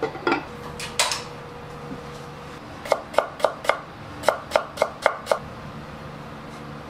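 A glazed ceramic lid clinks as it is set on an earthenware donabe. Then a kitchen knife chops on a wooden cutting board in two quick runs, four strokes and then five, about four a second.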